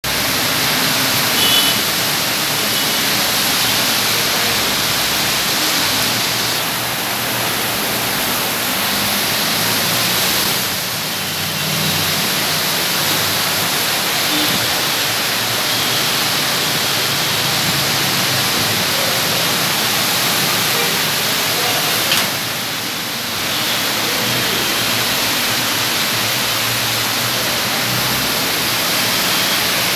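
Heavy rain pouring down steadily: a loud, dense, even hiss that eases briefly twice.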